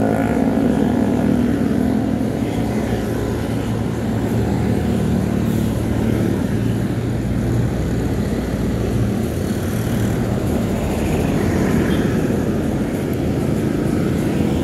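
Steady motor-vehicle traffic noise: an engine running with a low hum under road noise.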